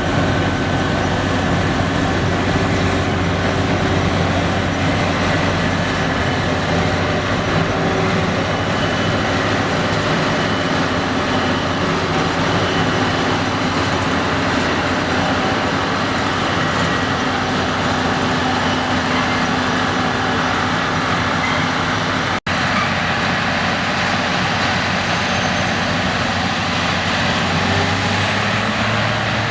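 Deutz-Fahr TopLiner 8 XL combine harvester running steadily while cutting wheat: a constant engine drone mixed with the noise of the threshing machinery. The sound breaks off for an instant about three-quarters of the way through, then carries on unchanged.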